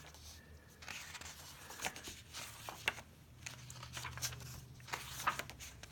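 Pages of a 19th-century book being turned by hand: paper rustling and crinkling, with scattered sharp ticks.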